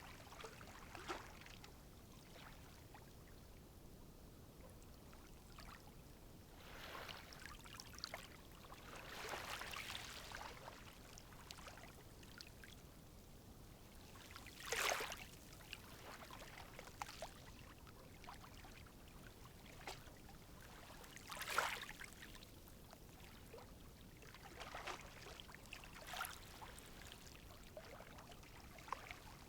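Calm sea waves lapping and washing in faintly, with a few brief louder splashes, the two strongest about halfway through and about two-thirds of the way through.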